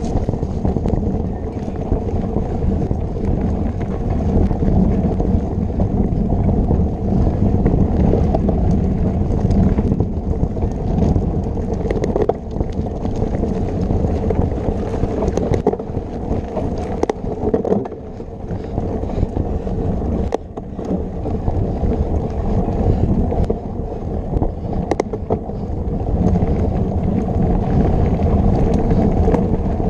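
Wind buffeting the microphone of a camera on a moving mountain bike, over a steady rumble of knobby tyres on a dirt trail. Scattered short knocks and rattles come from the bike going over bumps.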